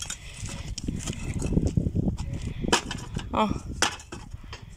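Knocks and clatter from a dug-up metal rocket tail section being handled and shifted on the ground, several separate knocks, one of them sharper, nearer the end.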